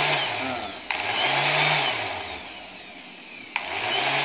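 WORKPRO random orbit sander running freely with a sanding disc on its pad, switched on with a click in short bursts. Each time it whirs up to speed, then winds down; it is started again about a second in and once more near the end.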